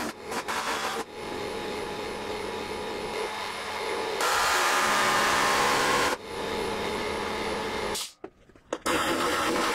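Pneumatic chisel (air hammer) working sheet steel over plywood formers to press stiffening beads into a panel. The film is sped up, so the hammering runs together into a steady, harsh noise, loudest in the middle and broken by short gaps about a second in, around six seconds and just after eight seconds.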